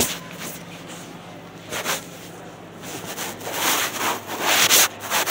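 Fabric rubbing and rustling against a phone's microphone as the phone is handled in clothing, in rough bursts that grow louder and more frequent in the second half.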